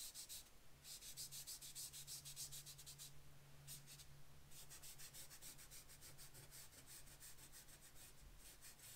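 Chalk pastel being rubbed into paper: faint, quick back-and-forth strokes, several a second, in spells broken by short pauses, as black pastel is blended into the other colours for shading.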